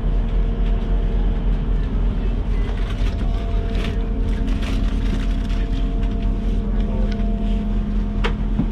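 Steady low hum of a diesel train's engine idling, heard from inside the carriage, with scattered light knocks and rustles of passengers moving down the aisle and one sharp click near the end.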